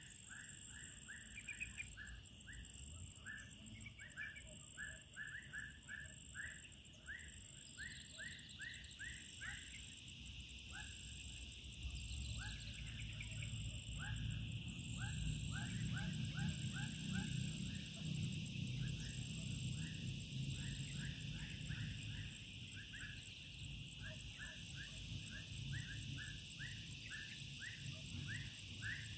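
Outdoor wildlife chorus: insects droning steadily at a high pitch under an animal's rapid short chirps, several a second, in long runs. A low rumble swells about halfway through.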